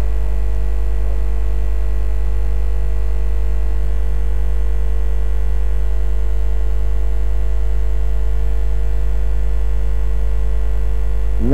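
Steady electrical hum, strongest at the very low end, with a few faint steady higher tones above it and no change throughout.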